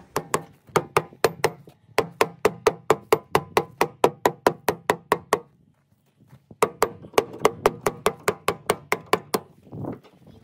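Rapid, evenly spaced mallet blows on the wooden staves of a hot tub, about four a second, each with a hollow ring. They stop for about a second just past the middle, then start again for a few seconds more.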